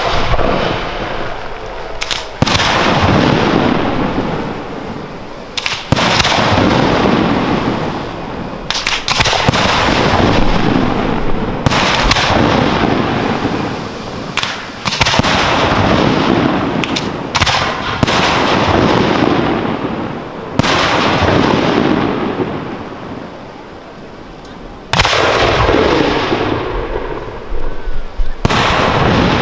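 Aerial firework shells bursting in a professional display: a sharp bang about every three seconds, about nine in all, each followed by a long rumbling, reverberating tail that fades before the next.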